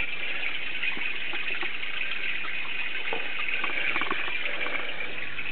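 Steady rush of running water, with a few faint clicks.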